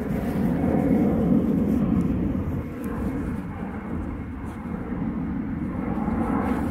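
A steady low rumble with no clear tone, swelling and easing slightly.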